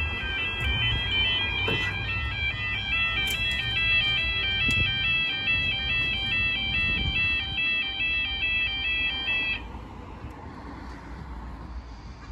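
Railway level crossing audible warning alarm sounding its rapidly alternating high two-tone warble as the barriers lower, then cutting off suddenly about nine and a half seconds in, once the barriers are down.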